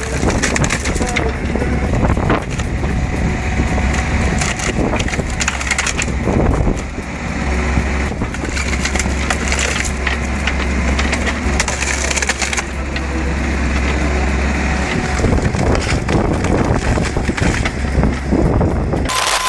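Wood cracking and splintering as a hydraulic screw (cone) splitter bores into a large oak log, over the steady running of the mini excavator that drives it. The cracking is continuous, with the low engine sound dropping in and out.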